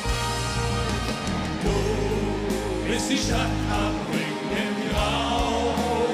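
Live band music with several voices singing together over drums and electric guitars.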